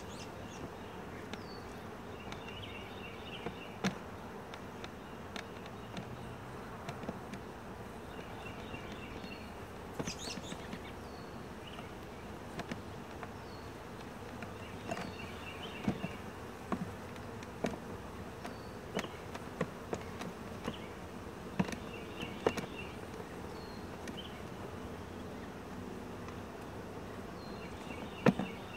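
Honeybees buzzing steadily around an open hive, with scattered soft clicks and cracks as a knife cuts capped drone comb out of a wooden frame.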